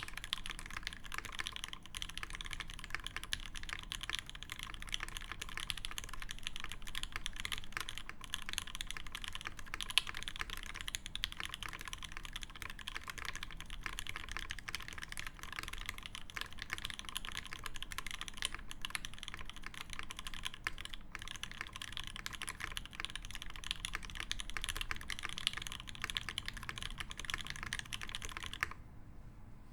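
Fast, continuous typing on a TX65v2 65% mechanical keyboard with a brass plate, lubed OP Black switches and GMK Botanical keycaps: a dense stream of keystrokes that stops abruptly near the end.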